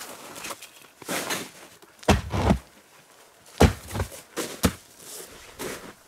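Footsteps crunching through deep snow, a series of irregular crunches with a few heavier thuds.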